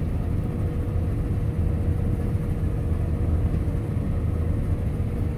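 Heavy farm machine's engine running steadily under load, a low even drone with a faint steady whine over it.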